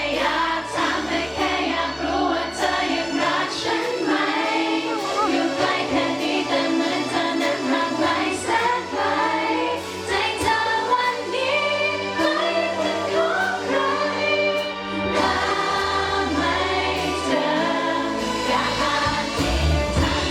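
Thai pop song performed live: singing over the band's music, with several voices heard together.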